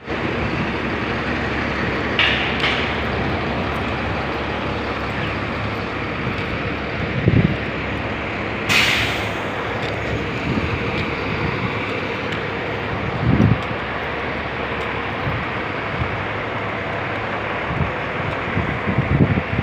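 Bus engines running in a bus yard, a steady drone, with short hisses of air about two seconds in and a sharp burst of air hiss about nine seconds in. A few low thumps come through the drone.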